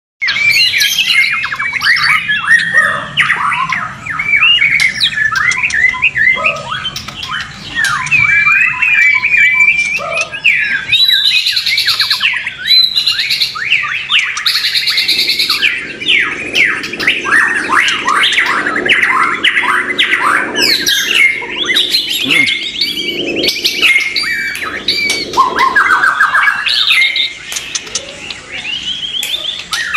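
Several white-rumped shamas singing at once: a dense, unbroken chorus of rapid sweeping whistles and harsh chattering calls, overlapping one another.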